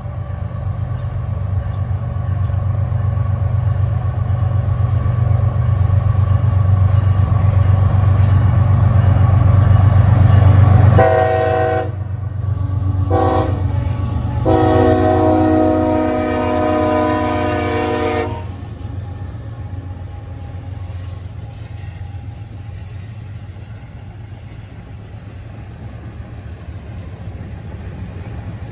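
Freight train passing: a CSX diesel locomotive's engine rumble builds as it approaches, then its multi-tone horn sounds three times about eleven seconds in, a short blast, a brief toot and a long blast of about four seconds. After the locomotive passes, the tank cars roll by with a quieter, steady rumble.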